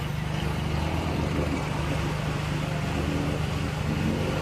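Off-road vehicle's engine idling steadily.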